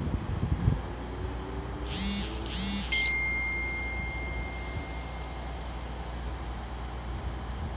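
A GWR Class 158 diesel multiple unit idling at the platform with a steady low rumble. About two seconds in come two short beeps, then a single ding that rings on and fades.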